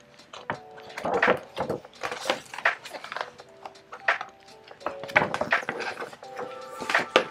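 Large coated-paper pages of a whiteboard wall calendar being lifted and flipped over, making a series of crisp rustles and flaps. Soft background music plays underneath.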